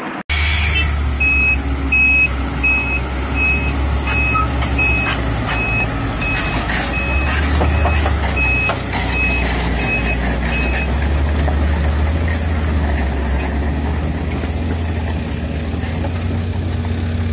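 A heavy vehicle's reversing alarm beeps about three times every two seconds over the steady low rumble of a heavy machine engine. The beeping stops about eleven seconds in, and the engine keeps running.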